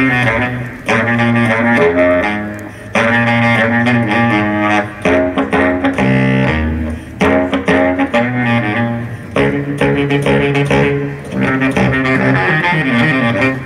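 Recorded music played over hi-fi loudspeakers in a demonstration room: a low, melodic line of long held notes, played in phrases with short breaks between them.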